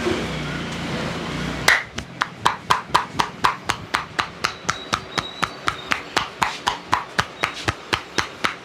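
A barber's hands striking a client's head in a fast, even rhythm of hollow slaps during a head massage, about four a second, starting after about a second and a half of steady background rumble.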